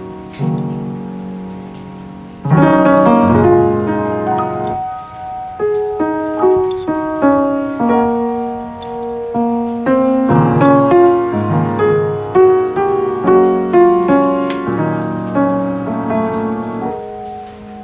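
Background music: solo piano playing gentle notes and chords that fade after each strike.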